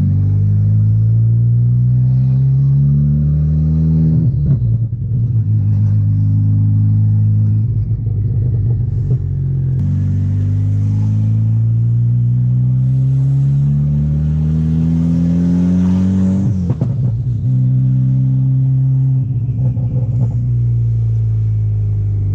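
Built turbocharged four-cylinder of a MK6 Golf R with a Garrett G25 turbo, accelerating hard through the gears: the revs climb and drop back at each gear change, four times, the longest pull running about seven seconds, then the engine holds a steady speed near the end. It is pulling smoothly on a test drive after the cam adjuster, cam solenoid, timing chain and tensioner were replaced.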